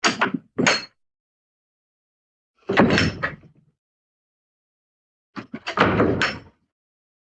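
Hanna-Barbera cartoon sound effects played one after another with silence between them: sudden bangs and clatters like door slams. There are two short hits at the start, another about three seconds in, and a longer clattering cluster near the end.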